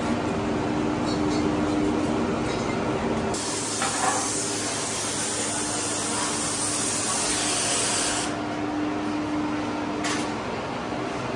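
A burst of compressed-air hiss, starting about three seconds in and cutting off abruptly about five seconds later, over a steady hum of factory machinery.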